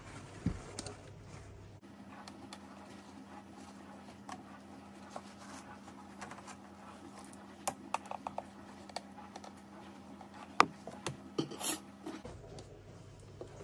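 Sped-up handling of a glass terrarium with a metal-framed mesh lid and paper towels: rubbing and scraping with scattered light clicks and taps, the sharpest near the end. The room hum sounds about an octave higher while the footage is fast-forwarded.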